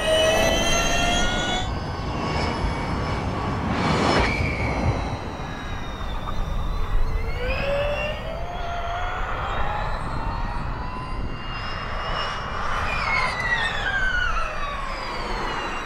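Porsche 99X Electric Formula E car's electric drivetrain whining at speed over tyre and wind noise, rising in pitch as it accelerates. A whoosh comes about four seconds in, the whine climbs again from about eight seconds, and it falls in pitch near the end.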